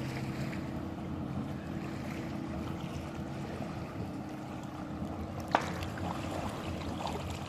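Boat motor running slowly with a steady low hum over water and wind noise, and one sharp knock about five and a half seconds in.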